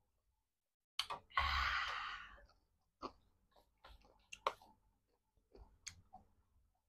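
Close-miked mouth sounds of a person eating spicy noodles: a click about a second in, then a long breathy exhale that fades over about a second, followed by scattered short wet mouth clicks and smacks while chewing.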